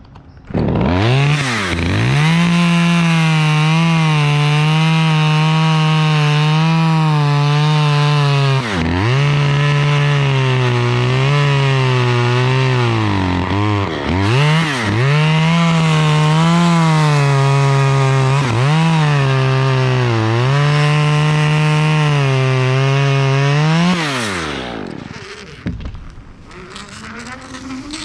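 Chainsaw revved up about a second in and cutting poplar wood, its engine pitch sagging and recovering several times under load, then winding down and stopping near the end.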